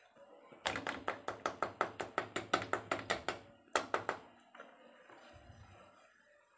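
Wire whisk clicking rapidly against the sides of a steel bowl as thin rava dosa batter is beaten to break up lumps, about six strikes a second for some three seconds, then a few more strikes and quieter sloshing.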